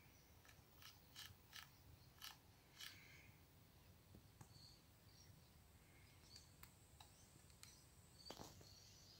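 Near silence: room tone, with a few faint clicks in the first three seconds and another near the end.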